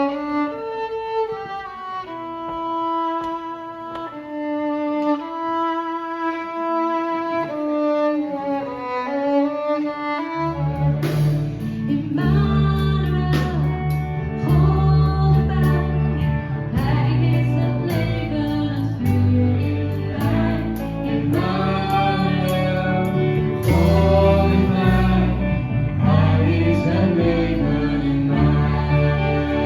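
A small live band playing: a slow melody of long held notes with voice and bowed strings, then bass and drums come in about ten seconds in and the full band plays on.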